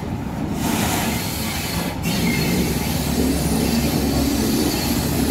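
Small diesel shunting locomotive hauling a passenger coach, approaching with a steady low engine and wheel rumble that grows louder.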